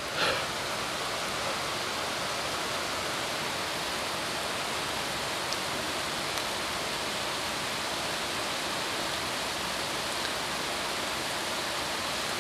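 A steady, even hiss of noise with no speech, broken only by a couple of faint ticks about halfway through.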